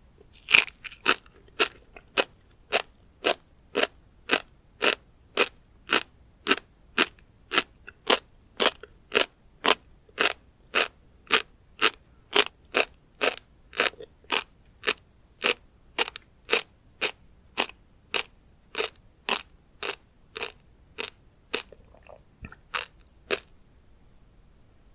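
Close-miked chewing of tobiko (flying fish roe): a crisp crunch with every chew, steady at about two a second, stopping shortly before the end.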